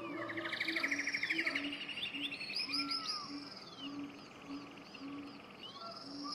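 Forest ambience of several birds singing: rapid trills, chirps and sweeping whistles, over a low call repeated about twice a second.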